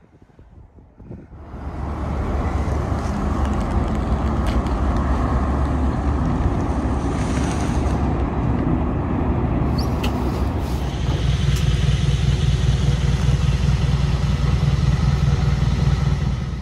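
A motor vehicle's engine running steadily. About eleven seconds in, its sound shifts as a deeper hum and a higher whine join in.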